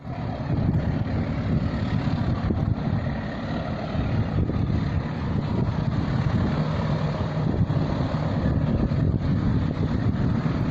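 Freight train running past with a steady low rumble.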